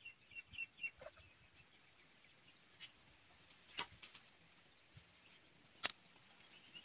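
A few faint, sharp clicks of cooked river snail shells knocking together as they are picked from a pile by hand, the two loudest about four and six seconds in. Faint bird chirps during the first second.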